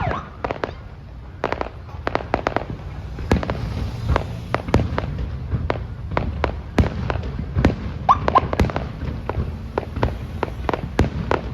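Fireworks display: a dense, irregular string of sharp bangs and crackling bursts over a low rumble, with no break.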